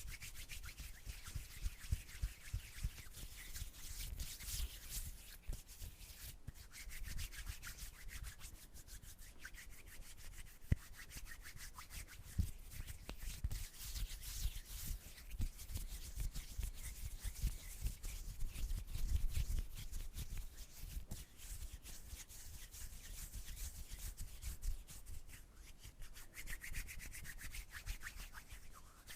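Hands rubbing together, a continuous dry swishing full of small crackles and clicks that swells and eases.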